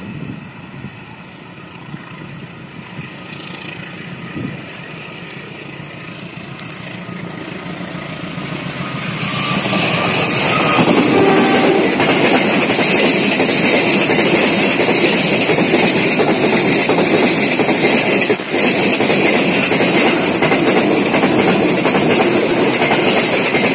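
Freight train of container flat wagons approaching along the track, growing steadily louder over the first ten seconds or so, then rolling past close by with loud, steady wheel-on-rail noise.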